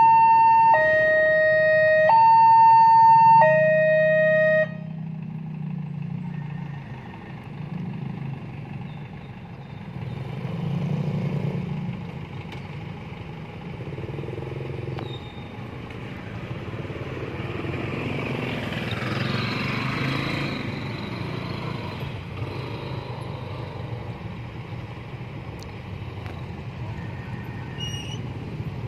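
Railway level-crossing warning alarm sounding a loud two-tone electronic signal that alternates high and low about every second and a half, cutting off suddenly about four and a half seconds in. After that, motorcycle engines idle and traffic passes at the crossing.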